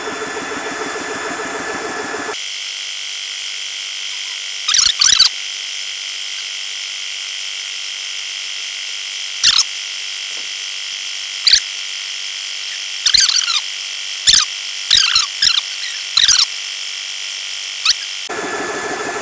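SMACO portable high-pressure electric compressor running as it tops off a PCP air rifle. About two seconds in, the sound abruptly turns into a high, steady whine with short chirping bursts scattered through it: the compressor run sped up. Near the end it drops back to the normal running sound.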